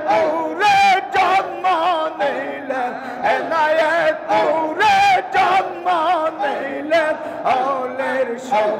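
Men singing a devotional zikr song, the melody wavering and ornamented, with several voices sounding together.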